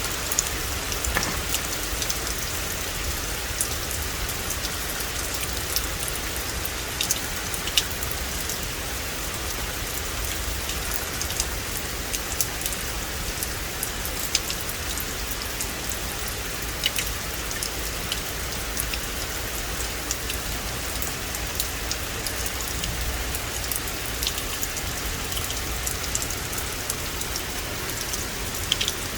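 Steady rain falling on a forest: an even hiss of rainfall, with many sharper ticks of single drops striking nearby.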